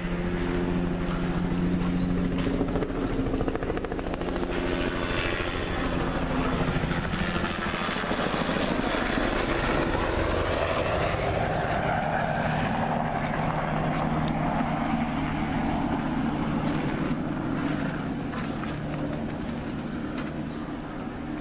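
Crop-spraying helicopter flying low over the area, its rotor and engine running steadily; the pitch drops a few seconds in as it passes, and the sound eases slightly near the end.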